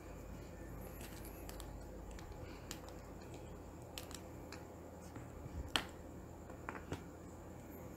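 Faint room tone with a low hum, broken by a few small sharp clicks, the loudest about six seconds in.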